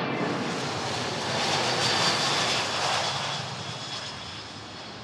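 Boeing C-17 Globemaster III's four turbofan engines passing low overhead: a loud jet rush with a faint high whine that swells to its peak about two seconds in, then fades.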